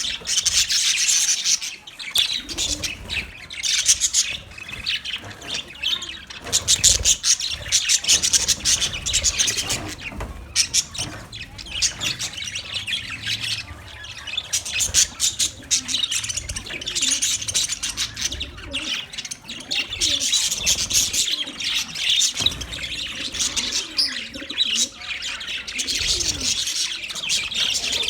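Budgerigars chattering and chirping without a break: a dense stream of high warbles and rapid clicks.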